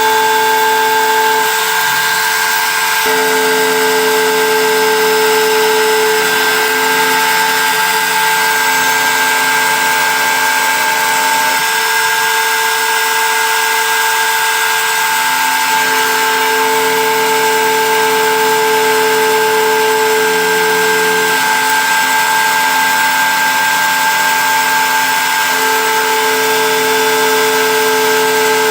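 CNC engraving machine at work: a loud, steady high-pitched whine over a noisy bed, with lower motor tones that switch on and off every few seconds as the axes move.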